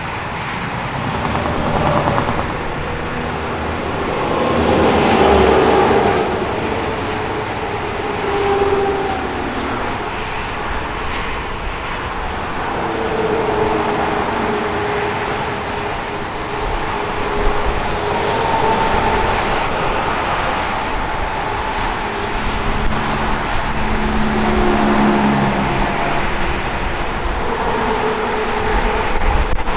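Busy highway traffic: a continuous rush of tyres and engines, with the humming engine and tyre tones of passing vehicles rising and fading every few seconds.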